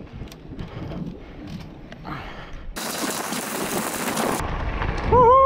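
Mountain bike rattling and clattering over a rough trail on a fast descent, with a loud rush of noise for about a second and a half midway. Near the end comes a loud drawn-out squeal that rises and then falls in pitch.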